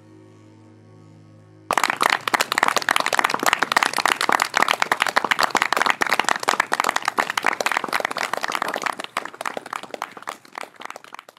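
A low steady drone with several overtones, cut off about two seconds in by audience applause: dense, irregular clapping that thins out and fades near the end.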